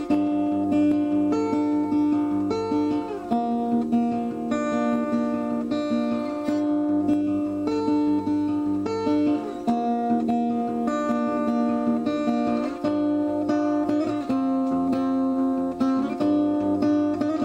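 Background music of acoustic guitar, picked and strummed in a steady rhythm.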